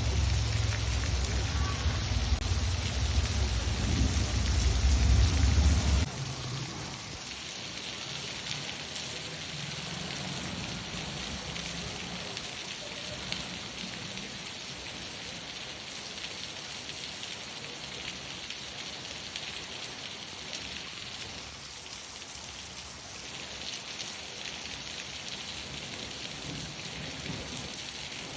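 Steady rain falling on surfaces, an even hiss. For the first six seconds a deep rumble of thunder sits under it, then stops abruptly.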